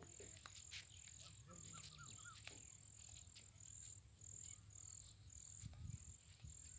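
Faint outdoor quiet with insects chirping in short high-pitched pulses, about two a second, and a brief run of faint chirps about a second and a half in.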